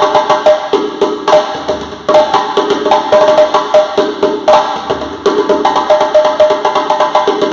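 Alder-wood drum played in a quick, steady rhythm of sharp strikes, each with a short pitched ring.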